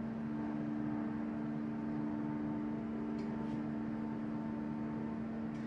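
Hydraulic open-die forging press running with a steady hum and a constant low tone, as it squeezes a red-hot steel billet. A couple of faint ticks come through about three seconds in and near the end.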